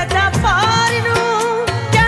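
Music with a steady beat and a melodic line.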